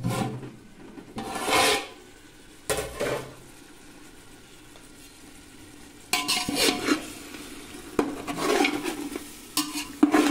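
Metal spatula scraping and stirring chicken in thick masala in an aluminium pot, in short irregular bouts with a quiet stretch in the middle, over the sizzle of the frying masala. This is the bhuna stage, the chicken being fried in its masala on a medium flame.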